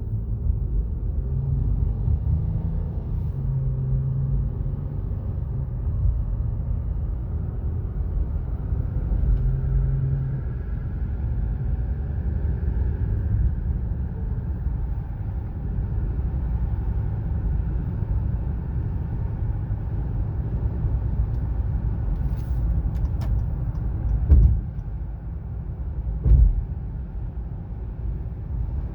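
A 2017 Acura MDX driving on the road: steady low tyre and road rumble with a faint whine that rises in pitch about a third of the way in. The whine increases with speed and seems to come from the front passenger side. Two short thumps come near the end.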